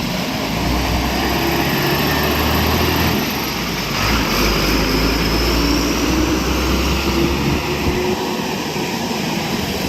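A vehicle engine running with a steady low rumble, which drops away about eight seconds in.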